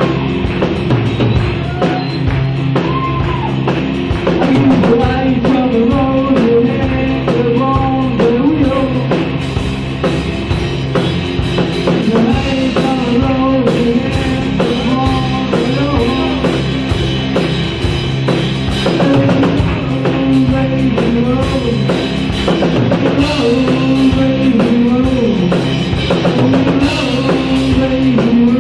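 Rock music from a full band, with a drum kit keeping a steady beat under pitched melody lines.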